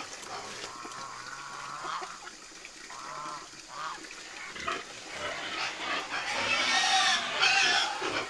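Pigs squealing in short calls, a few about three seconds in and a louder run of squeals near the end.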